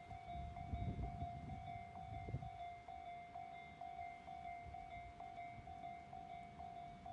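Japanese railway level-crossing alarm ringing its repeating electronic ding, the crossing closed for an approaching train. A low rumble underneath fades out after about two and a half seconds.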